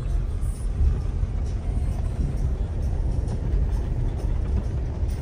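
A car driving, with a steady low rumble of engine and road noise.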